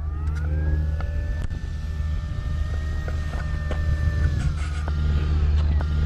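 Brushless electric motor and propeller of a Flex RV-8 60E RC plane whining as it taxis. The pitch rises about half a second in, holds steady, drops after about four seconds, and dips again near the end, over a steady low rumble.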